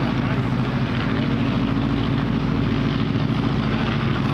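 Engine of a vintage open-wheel race car running steadily as the car drives slowly around the track, an even, loud drone with no revving.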